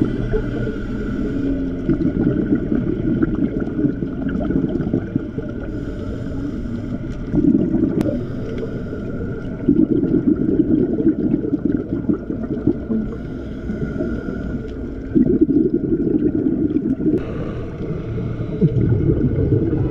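Underwater sound of a scuba diver breathing through a regulator: a steady low rumble with loud gurgling bursts of exhaled bubbles every few seconds.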